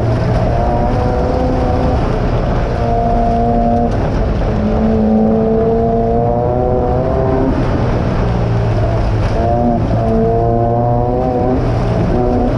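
Off-road race car engine running hard, heard from inside the car, its pitch shifting up and down with the throttle and dropping briefly about four and nine seconds in, over a steady rumbling noise.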